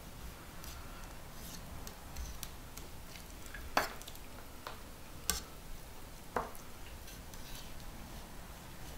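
Curved fillet knife cutting a coho salmon along its backbone on a cutting board: quiet slicing and handling with three sharp clicks of the blade, the loudest about four seconds in.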